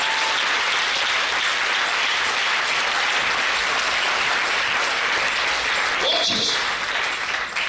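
A congregation applauding, a steady dense clapping that begins to die down near the end as a voice breaks in.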